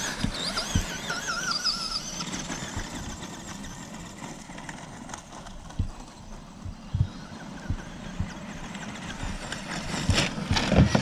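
Electric RC trucks driving on gravel. For the first couple of seconds a warbling motor whine rises and falls with the throttle, then tyre and gravel noise carries on, with a burst of louder knocks near the end.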